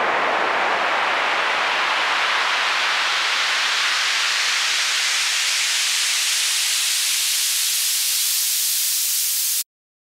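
Stereo test signal for phantom-centre stability: a band of noise, the same in both channels, sweeping slowly upward in pitch at a steady level. It cuts off suddenly near the end.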